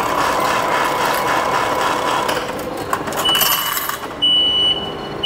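Subway ticket machine whirring as its note mechanism counts out and dispenses change banknotes. It is followed a little past halfway by short high beeps about a second apart, prompting collection of the change and ticket.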